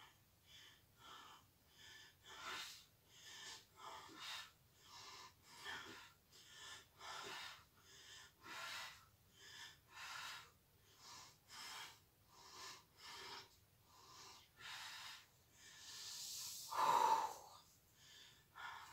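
A woman breathing hard and rhythmically through a set of glute bridges, short quick breaths at about one and a half a second. Near the end comes a longer, louder voiced exhale as the set finishes.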